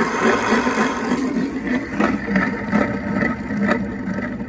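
Renault Zoe ZE40 electric traction motor's rotor shaft spun quickly with the motor stripped, its bearings giving a rough, pretty terrible rumble with a few sharp knocks in the second half: the mechanic thinks both bearings are noisy.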